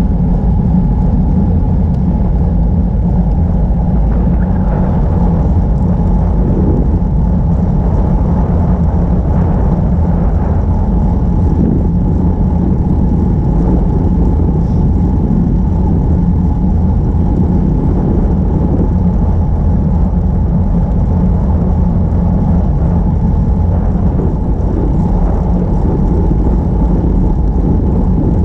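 Steady wind rumble and road noise on a camera riding on a moving bicycle: a dense, even drone that neither stops nor changes.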